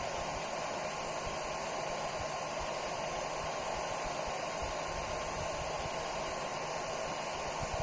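Steady, unchanging whir of a small cooling fan on a 3D printer's laser setup, with a faint low hum under it.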